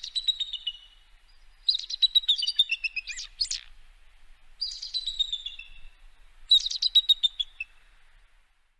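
Eagle calling: four bursts of rapid, high chattering notes, each falling in pitch, with short pauses between them.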